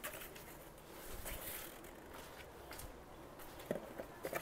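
Faint rustling with a few light clicks and knocks near the end: a plastic hanging pot and its hanger being handled.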